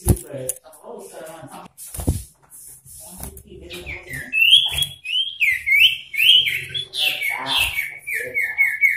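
Male common iora calling excitedly, as a male does when roused by a rival: a run of loud down-slurred whistles from about four seconds in, breaking near the end into a fast, even trill of about six notes a second. Two thumps come in the first couple of seconds.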